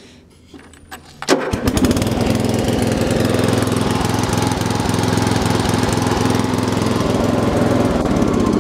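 A Murray 40702X92C lawn tractor's 12.5 hp engine restarting. After about a second of quiet it fires almost at once and settles into a steady run. It restarts readily: "that really restarts good".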